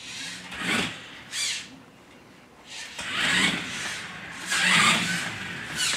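Small electric motor of a toy remote-control quad bike whirring as it is driven: two short bursts in the first second and a half, then a longer run about halfway through.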